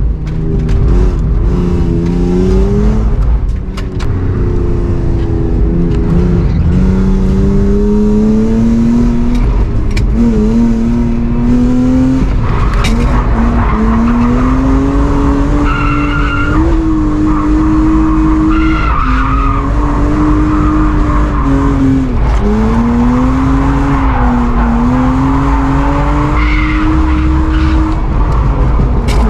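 Drift car's engine held at high revs, its pitch rising and falling repeatedly as the throttle is worked. From about twelve seconds in, tyres squeal and hiss as the car slides sideways.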